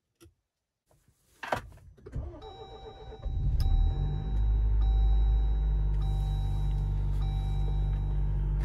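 Jeep Wrangler Rubicon engine cold-started at about −19 °C: after a short knock, the starter cranks for about a second, the engine catches about three seconds in, runs up briefly and settles into a steady idle. A thin electronic warning tone, broken about once a second, sounds over the idle.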